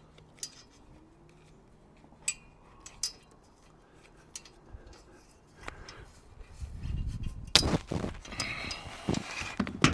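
Small metal mounting hardware of a roof-rack cargo basket clinking and clicking as a mount is fitted to a crossbar: a few separate clicks, then busier handling clatter and knocks in the second half, with one sharp knock.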